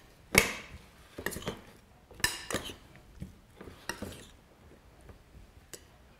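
Metal spoon stirring in a small ceramic bowl, clinking and scraping against its side in a series of separate knocks, the loudest about half a second in.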